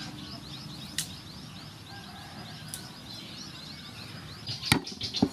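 A bird's rapid trill of short rising chirps, about six a second, over an outdoor background. Near the end come a few sharp cracks as garlic cloves are broken off the bulb on a wooden board.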